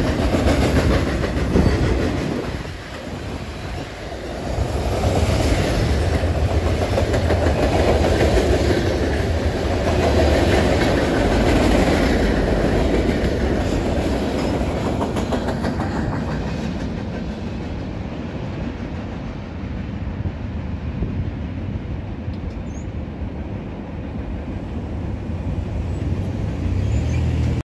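Freight train of mixed cars (autoracks, tank cars, covered hoppers) passing close by, its steel wheels rolling over the rails. The sound is steady and loud, then gradually grows quieter from about halfway through.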